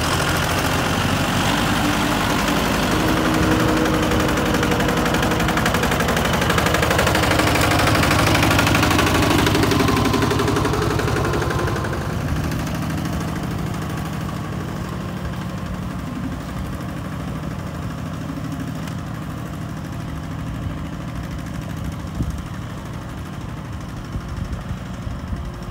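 Diesel engines of a Kubota four-wheel tractor and a Kubota RT140 two-wheel tractor working under load in deep mud, the engine pitch rising and falling with the throttle. About halfway through, the sound drops to quieter, steadier running.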